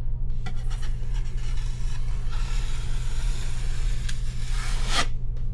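Paper drywall tape being smoothed down onto a wet mudded seam, a rubbing scrape that grows stronger partway through and ends with a short sharp stroke about five seconds in.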